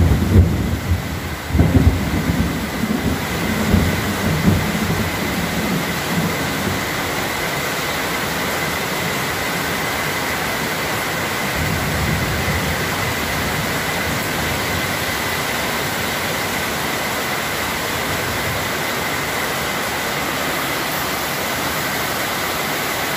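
Heavy rain falling steadily on a corrugated metal carport roof and the yard around it, an even hiss. A few low rumbles come and go in the first few seconds and again about twelve seconds in.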